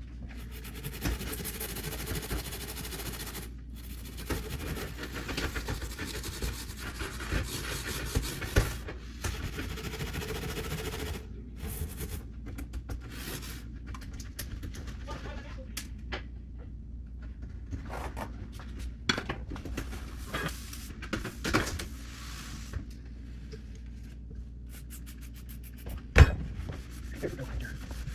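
Razor blade and stainless steel scrubber scraping and scrubbing old caulk off a countertop: a steady rasping rub for about the first eleven seconds, then scattered separate scrapes and clicks, with a sharp knock near the end.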